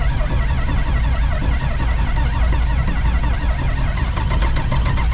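Combine engine cranking over on its starter in the cold, turning with an even rhythmic chug as it tries to catch but does not start.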